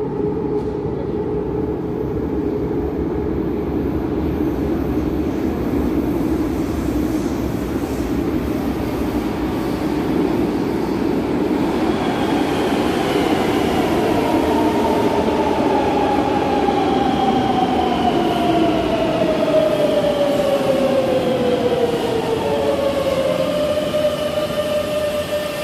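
Madrid Metro train pulling into the station from the tunnel, with a continuous rumble. From about halfway the train's electric whine glides down in pitch as it slows alongside the platform, then settles into a steady tone near the end.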